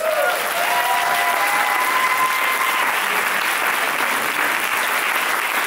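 Studio audience and on-stage guests applauding, a steady even clapping throughout.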